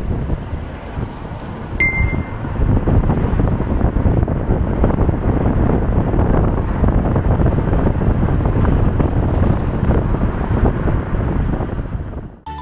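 Wind buffeting the microphone at a moving car's open side window, over the rumble of the car and city traffic. A brief high beep sounds about two seconds in, and the noise cuts off just before the end.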